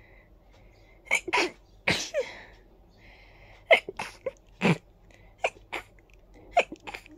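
A person sneezing in a fit: about a dozen short, sharp sneezes in quick succession, several coming in pairs, from a tickly nose.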